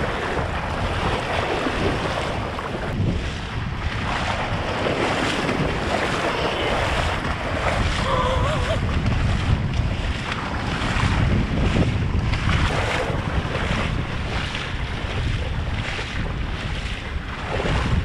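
Wind buffeting the microphone over the steady wash of water and surf on a shallow reef flat.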